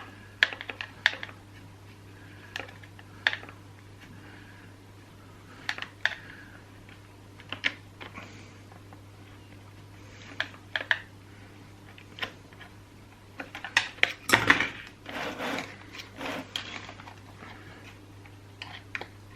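Hands working on a chainsaw's plastic housing and rubber hose: scattered small clicks and taps of plastic parts, with a busier run of knocks and rustling about two-thirds of the way through.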